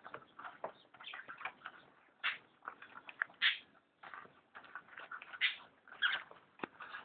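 Scrabbling and scratching at a tube wedged in a desk: many short, irregular scrapes with a few sharp taps.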